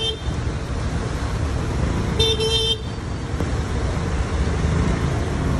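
Road traffic in a jam: vehicle engines running under a steady roadway rumble, with one short horn toot about two seconds in and the tail of another at the very start.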